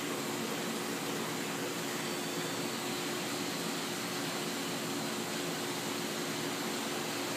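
Waterjet cutting machine running: a steady, even hiss with a faint hum underneath.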